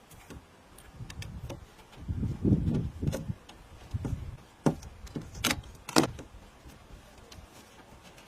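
Handling noises from hands-on repair work: low rubbing and scraping, then several sharp clicks and knocks in the second half.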